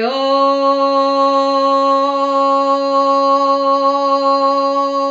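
A woman's voice holding one long, steady chanted note on the closing word "ashe", with a slight upward slide into the note at the start.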